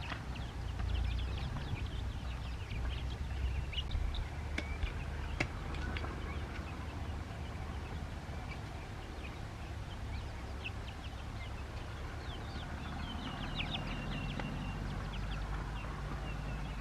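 Ducklings peeping: many short, high cheeps scattered throughout, over a steady low rumble.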